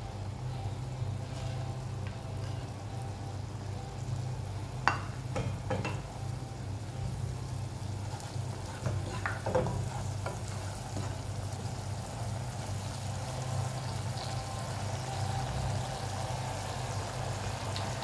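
Butter beans sizzling and bubbling in hot oil in a pot, with a spatula knocking and scraping against the pot a few times between about five and ten seconds in. A steady low hum runs underneath.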